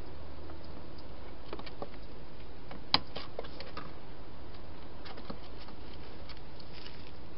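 A wild hedgehog feeding and shuffling about inside a plastic feeding box: scattered small clicks and scrapes, with one sharper click about three seconds in, over a steady hiss.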